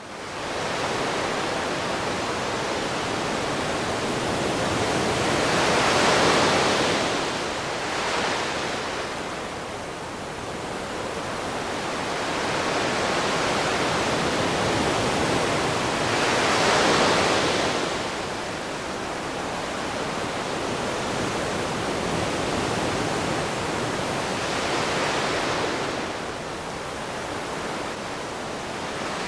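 Ocean waves breaking: a steady wash of surf that swells as a wave breaks about six seconds in, again around seventeen seconds, and more softly near twenty-five seconds.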